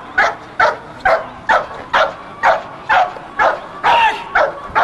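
Belgian Malinois barking in a fast, even series, about two barks a second, at a protection helper wearing a bite sleeve.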